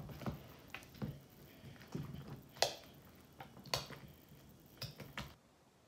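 Hands kneading and stretching wet slime that is being softened with water, giving irregular sticky squelches and pops. The sounds stop shortly before the end.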